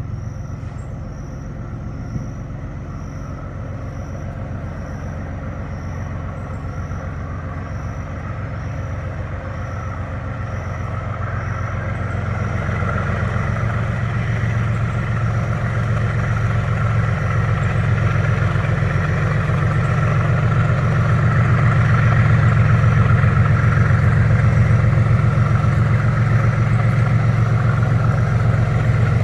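Diesel freight locomotives working under load at the start of a mountain climb: a deep, steady engine drone that grows louder over the first two-thirds as the train approaches, then holds.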